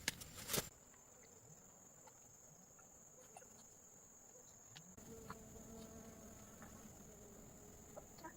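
Faint, steady high-pitched insect drone, with a few sharp clicks in the first half-second.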